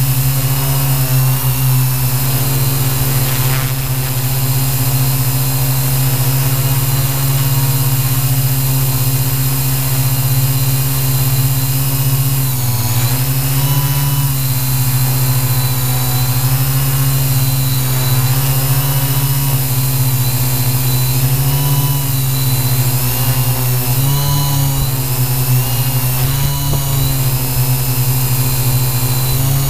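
Q800 quadcopter's electric motors and propellers heard from its onboard camera: a loud, steady buzzing whine made of several pitches that drift up and down independently as the motor speeds are trimmed to hold the hover. The pitches dip and cross most noticeably about two-thirds of the way through, as the craft turns.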